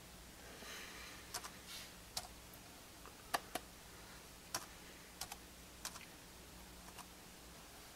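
Light, scattered clicks of an iBook G3's keyboard keys and trackpad button as the date is typed in, some clicks coming in quick pairs.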